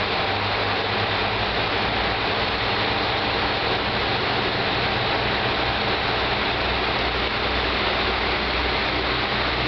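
Two-car JR Kyushu KiHa 125 diesel railcar pulling out of the station, its engine giving a steady low drone that grows heavier about halfway through, under a constant hiss.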